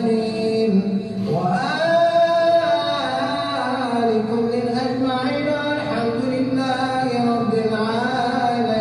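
Men's voices chanting dhikr, a drawn-out sung melody with long held notes that slide up and down in pitch.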